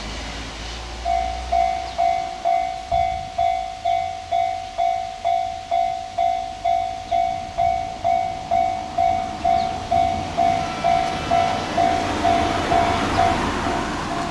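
Japanese railway level-crossing warning bell starting about a second in and ringing about twice a second, each strike fading quickly. Near the end the running noise of an approaching train grows under it.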